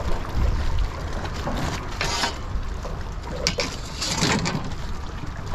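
Wind rumbling on the microphone over water lapping against a small skiff, with a few short clicks and knocks of fishing gear being handled in the boat about two seconds in and again around three and a half to four and a half seconds in.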